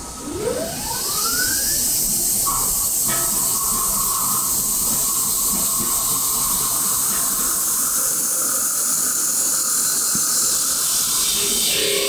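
Metal lathe turning the outside of a cast-aluminium wok body: a rising whine over the first two seconds, then a loud, steady high hiss of the tool cutting the spinning aluminium.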